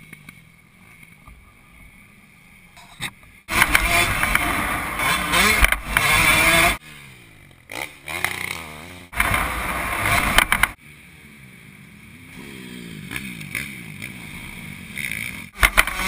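Dirt bikes on a motocross track, engines revving up and down as they pass close by. The first loud pass comes about three and a half seconds in and the second at about nine seconds. Between and after the passes the engines rise and fall farther off.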